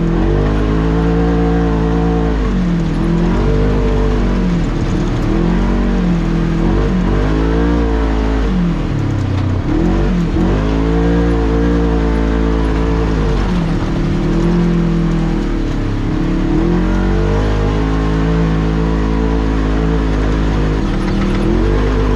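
Polaris RZR XP 1000 side-by-side's parallel-twin engine running on the trail, its pitch rising and falling every few seconds as the throttle is worked, with one deeper drop about nine seconds in.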